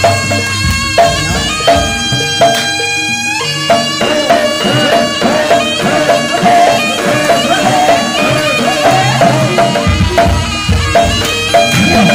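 East Javanese jaranan Kediri ensemble music: a loud, reedy shawm (slompret) melody with bending pitch, played over kendang drums and struck gongs.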